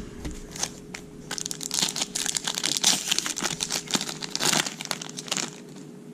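Crinkling and rustling from handling Topps Chrome trading cards and their pack wrapper: a dense run of quick crackles that starts about a second in and stops about five and a half seconds in.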